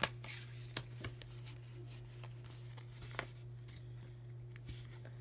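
Pokémon trading cards being handled, with faint rustling and several small clicks over a steady low hum.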